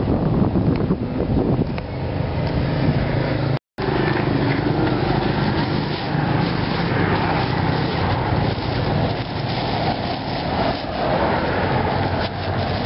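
Steady street traffic noise dominated by a motor vehicle engine running close by. The sound cuts out completely for a split second just under four seconds in.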